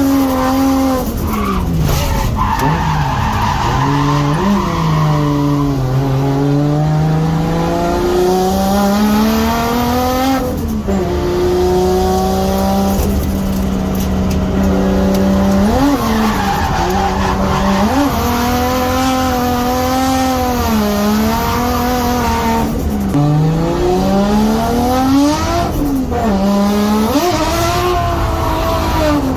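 Nissan Skyline R32's RB20DET turbocharged 2.0-litre straight-six revving hard while drifting, its pitch rising and falling repeatedly with sharp drops several times, over the skid of the tyres.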